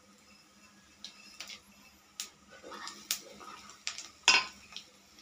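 Cumin seeds and dried red chillies crackling in hot oil in a kadai, a scattering of sharp, irregular pops and ticks, the loudest about four seconds in: the seeds spluttering as a tempering (tadka) starts in well-heated oil.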